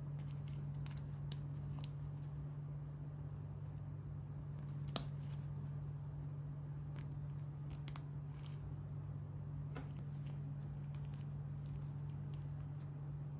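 Small LEGO plastic pieces clicking and tapping as they are handled and pressed together, a handful of scattered sharp clicks with the loudest about five seconds in and a close pair near eight seconds, over a steady low hum.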